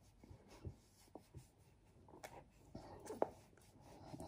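Faint rubbing and rustling of a wet face-cleansing wipe against skin, with a few soft ticks and one slightly louder tick about three seconds in.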